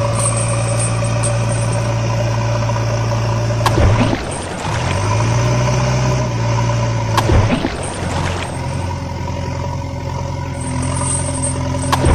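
Heavy diesel engine running steadily, an engine sound effect rather than anything made by the unpowered toys. Short clicks with a slight change in the hum come about every three and a half seconds.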